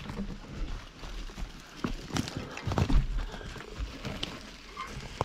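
Scattered irregular knocks and rattles from a mountain bike moving over a rough trail, with a low rumble underneath.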